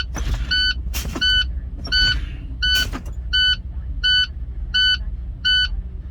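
International ProStar's low-air warning alarm beeping steadily about once every 0.7 s over the diesel engine idling. Four short bursts of air hiss come in the first three seconds as the brakes are worked to bleed the air pressure down.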